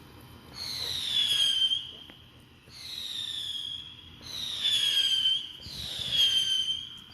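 Whistling fireworks: four high whistles one after another, each about a second long and sliding down in pitch.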